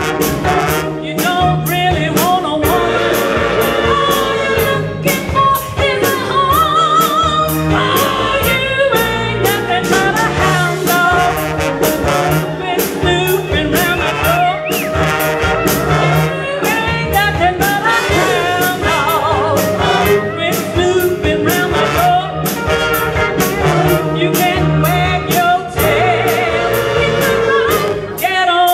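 A woman singing lead with a live band in a 1950s rock and roll number: trumpet and trombone, drums keeping a steady beat, and keyboard.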